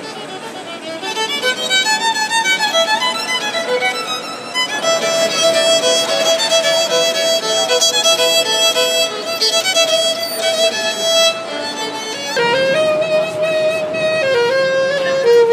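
Solo violin playing a melody of quick and held bowed notes. About twelve seconds in it cuts to a saxophone melody over the low rumble of a moving subway car.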